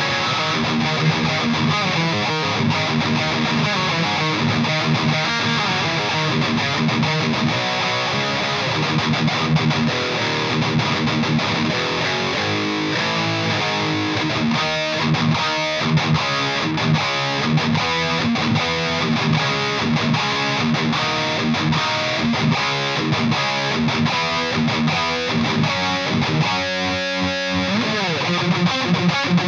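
Distorted electric guitar riffing through an EVH 5150 III LBX valve amp head, with the mids set around one to two o'clock. In the middle and again near the end it moves into stretches of fast, rhythmic chugging.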